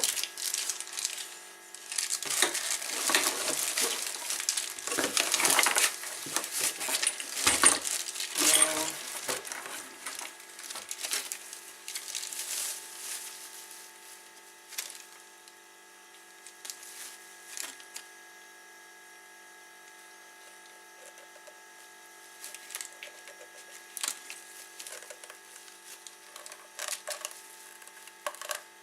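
Rustling and handling of packaging and loose parts being taken out of a box, with scattered light clicks and knocks as small parts are set down. The rustling is loudest over the first several seconds, then gives way to a quiet, steady hum with occasional clicks.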